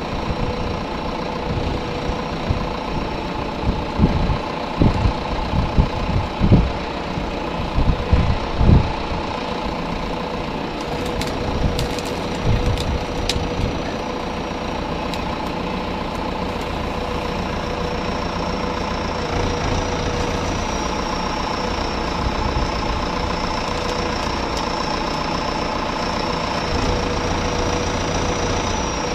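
Tractor engine running steadily at an even speed, with a series of low thumps and knocks about four to nine seconds in and a few light clicks a little later.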